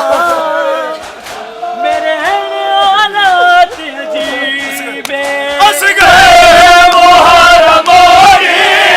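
Male voices singing a noha, a Shia Muharram lament, with a wavering melodic line. About six seconds in, it turns suddenly louder, with many voices chanting together.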